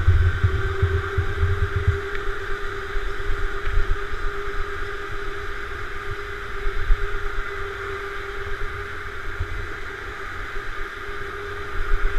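Electric go-kart motor whining at a nearly steady pitch, dipping slightly about eight seconds in, over low rumble of vibration and wind buffeting on the kart-mounted camera, heaviest in the first two seconds.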